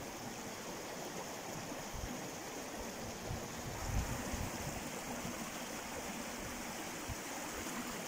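Small mountain river running steadily over a shallow bed between snowy logs: an even rushing of water, with a soft low bump about four seconds in.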